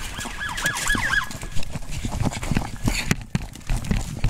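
A police siren yelps rapidly up and down for about a second, then stops, followed by a run of heavy footfalls with the body camera thumping and jostling as the wearer runs.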